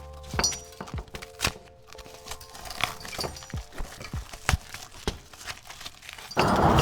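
Irregular metallic knocks and clicks from work on a Nissan 350Z's seized CV axle, which will not budge.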